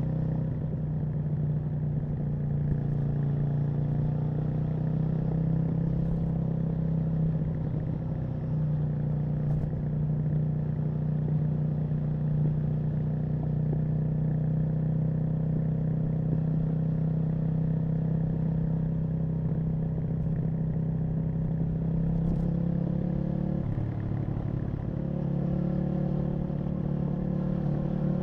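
Aprilia RSV Mille's V-twin engine running at steady revs as the motorcycle cruises. The revs dip briefly about 24 seconds in, then climb again near the end.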